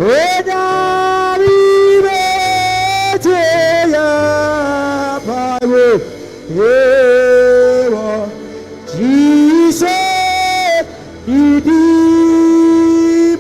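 A man singing a slow worship line in long held notes that slide and break into quick runs, over a low sustained backing. He sings "Jesus" near the end.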